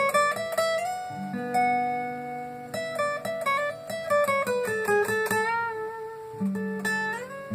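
Acoustic guitar playing a melody of quickly picked single notes over held bass notes, with a few notes sliding in pitch.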